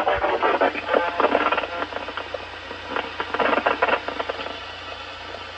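Weather radio receiver playing a noisy, broken-up broadcast through static, giving way to mostly hiss about four seconds in.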